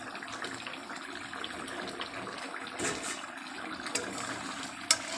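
Fish and potato curry bubbling as it simmers in a kadai on the gas, a steady wet bubbling hiss. A few light clicks, one sharper near the end.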